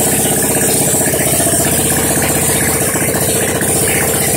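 Yerf-Dog go-kart's small single-cylinder engine idling steadily, with an even, rapid firing beat.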